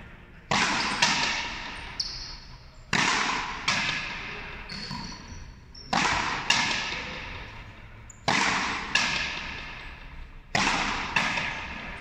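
A frontenis rally: the rubber ball cracks off the rackets and the frontón wall in pairs of sharp strikes about half a second apart, five pairs at an even pace, each ringing on in a long hall echo.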